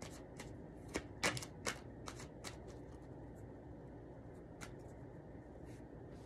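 Tarot cards being handled and laid on a felt card mat: a quick run of sharp clicks and taps in the first two and a half seconds, then one more click a couple of seconds later, over faint room noise.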